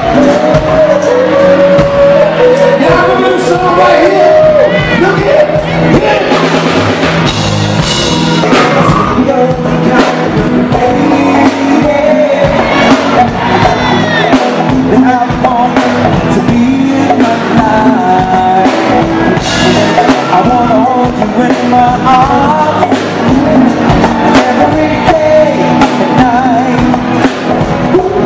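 Live go-go band playing, with a man singing lead into a microphone over electric guitars and a drum kit.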